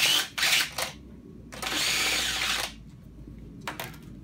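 Makita 18V cordless drill drilling a hole through a sheet-metal strip: several short bursts in the first second, then one steady run of about a second. A few light knocks near the end.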